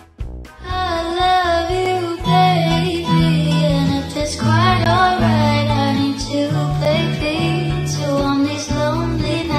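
Background music: a song with a high singing voice over a bass line, starting just after a short break near the beginning.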